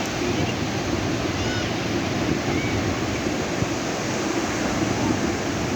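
Ocean surf washing onto a sandy beach: a steady rush of waves.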